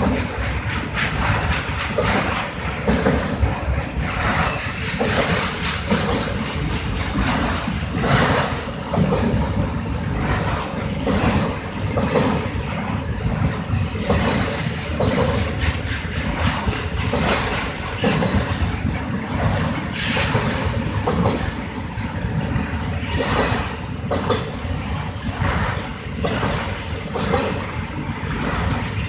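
Autorack freight cars of a slow-moving train rolling past: a steady rumble with frequent irregular clanks and clicks from the wheels on the rails.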